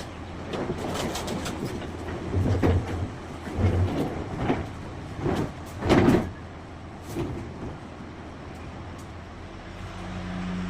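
A run of irregular knocks and clatter, the loudest about six seconds in, over a steady low hum; a steadier hum comes up near the end.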